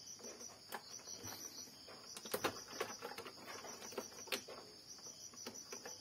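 Faint, scattered light clicks and ticks of a screwdriver and small screws and plastic parts being handled while the screws of an inkjet printer's carriage motor are taken out, over a steady faint high-pitched background hiss.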